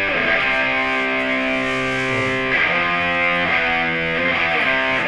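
Rock song intro played on distorted electric guitar, sustained chords changing about once a second.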